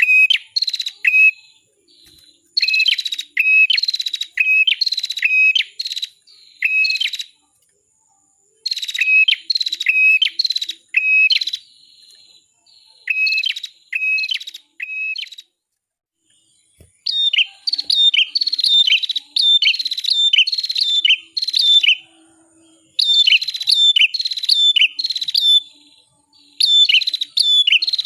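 Red-headed prenjak (cimblek) singing: series of loud whistled notes, each dropping sharply in pitch, about two a second, in bursts separated by short pauses.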